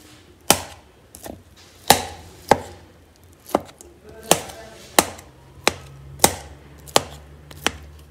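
A metal spoon chopping steamed tender jackfruit in a steel plate: a sharp clink of spoon on plate about every two-thirds of a second, about a dozen times.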